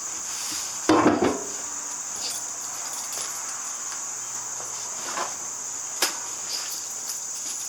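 Steady high-pitched chirring of crickets, with a loud clattering knock of metal tools about a second in and a couple of lighter clicks later.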